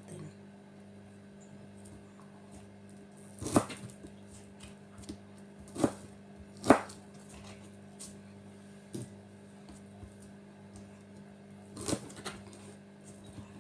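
Knife slicing fish balls on a plastic cutting board: about six sharp, separate knocks as the blade strikes the board, the loudest near the middle, over a steady low hum.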